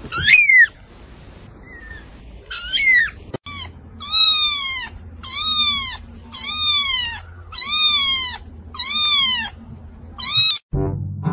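Very young kitten meowing in thin, high mews that fall in pitch. There are two separate mews, then a steady run of about six, roughly one a second.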